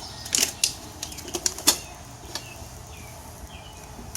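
Steel tire irons clinking and knocking against the wheel rim as a new tire's second bead is pried on: a few sharp knocks in the first two seconds, then lighter ticks and short squeaks.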